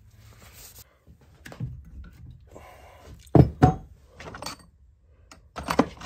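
Objects being set down and moved about on a wooden workbench: scattered knocks and thunks, the two loudest about three and a half seconds in, then a quick cluster of knocks near the end.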